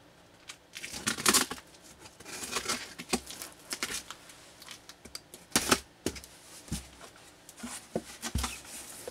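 X-Acto knife slicing through the packing tape on a corrugated cardboard box lid in several short scraping strokes, with the cardboard rustling as it is handled.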